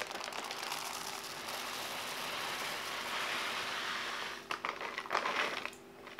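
Rolled oats poured from a plastic bag into a glass bowl: a steady pouring rustle for about four seconds, then some crinkling and a few irregular clicks as the bag is shaken out, stopping about a second before the end.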